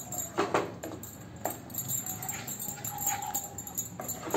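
Metal spatula stirring and scraping a thick besan-and-spice masala paste around a pan, in separate strokes about a second apart.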